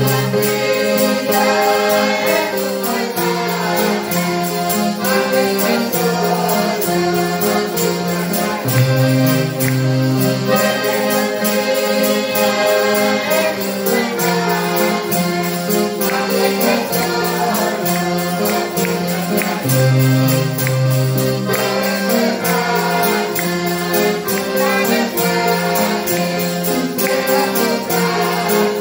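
Live Christian praise song played on a Hohner piano accordion and a strummed acoustic guitar, with men singing over them.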